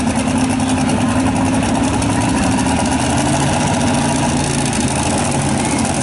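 Blown (supercharged) engine of a modified two-wheel-drive pulling truck idling loudly at the starting line, its note dropping lower about halfway through.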